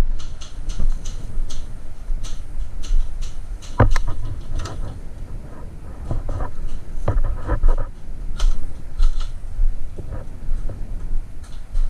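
Airsoft guns firing in scattered single shots and a short quick burst about seven seconds in, heard as sharp snapping clicks, over a constant low rumble of movement and wind on the microphone.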